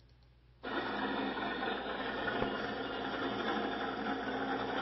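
A car engine running close by, cutting in suddenly about half a second in and then holding steady.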